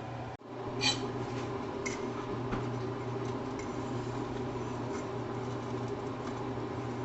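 Pancakes frying in a pan on the stove: a steady sizzle and hum, with a short ringing clink of a utensil against the pan about a second in and a lighter one a second later.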